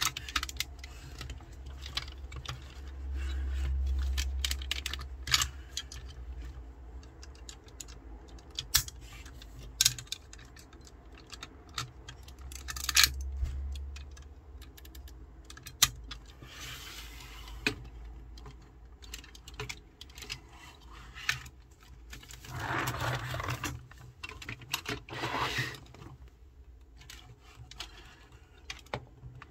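Plastic clicks and snaps of a Tobot transforming toy robot as its car panels, wheels and limbs are folded into place by hand, with handling rumble. About three-quarters of the way through come two longer rubbing scrapes.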